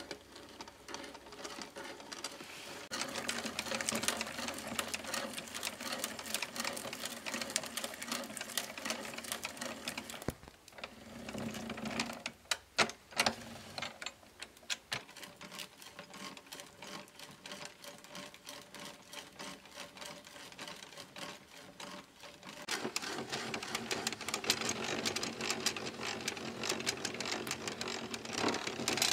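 Hand-cranked boring machine driving an auger bit into a timber: a fast, steady clatter of its gearing as the crank turns, with the bit chewing through the wood. A few sharper knocks come near the middle, the clatter goes quieter for a while, then louder again near the end.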